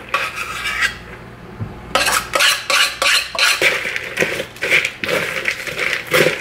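A utensil stirring and scraping cereal in a plastic mixing bowl, with rustling and light clinks that come thick and fast from about two seconds in.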